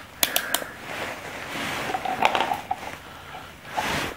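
Handling noise as a digital multimeter and its test leads are set up on a car battery: a quick run of three sharp clicks near the start, more clicks and knocks about two seconds in, and a brief rustle of gloved hands near the end.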